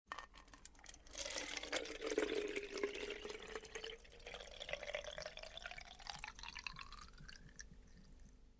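Liquid pouring into a bottle, splashing and bubbling, with the note rising steadily in pitch as the bottle fills.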